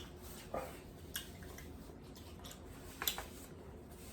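Eating at a seafood boil: a few short cracks and clicks with wet squishing, from seafood shells and food being handled and chewed, loudest about three seconds in.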